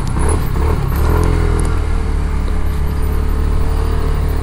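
A vehicle engine running steadily at low revs, with a steady higher hum that joins about a second in and cuts off near the end.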